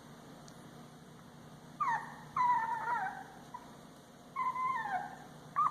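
Twelve-day-old puppies whimpering: three high whines, each falling in pitch, the second the longest, with another just starting at the end.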